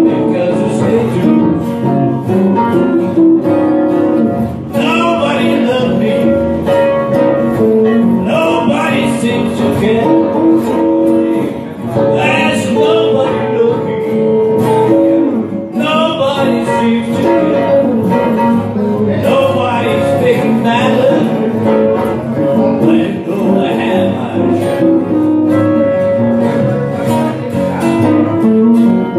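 Live blues played by a small band: a strummed acoustic guitar, an electric guitar and a keyboard, steady and loud.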